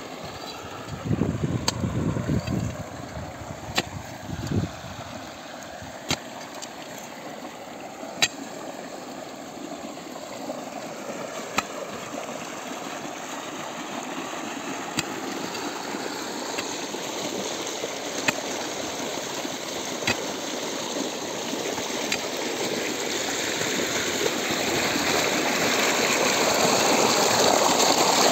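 Irrigation water gushing steadily from a pump outlet into a field channel, growing louder near the end. Sharp knocks every few seconds from an iron digging bar striking the earth.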